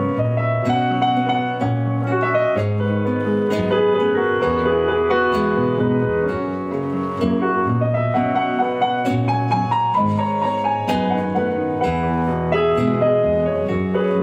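Instrumental interlude of a live song: keyboard playing a flowing line of quick notes over sustained bass notes.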